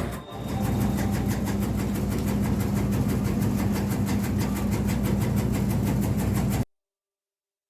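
Small engine running steadily with a fast, even pulsing beat; it cuts off suddenly near the end.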